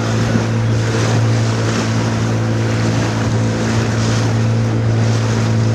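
Small boat's engine running at a steady pitch with a low hum, over the continuous rush of water and wind.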